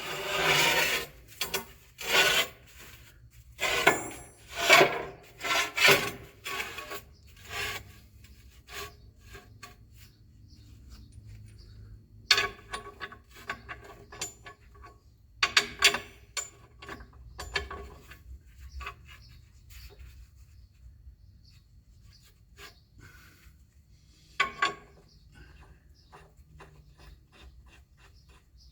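A drilled motor mounting plate being turned around and shifted into place: a run of loud scraping strokes at first, then scattered clicks and knocks as it is fitted against the bolt holes, over a low steady hum.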